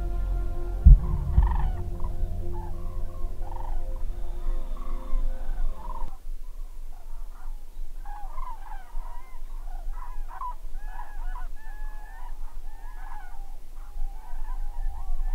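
A flock of common cranes calling in flight, many overlapping trumpeting calls. For the first six seconds a steady hum and low rumble lie under the calls and then cut off abruptly.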